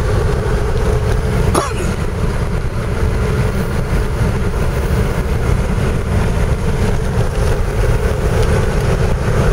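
Steady road and engine noise inside a moving car's cabin, a dense low rumble, with one brief high sweeping sound about a second and a half in.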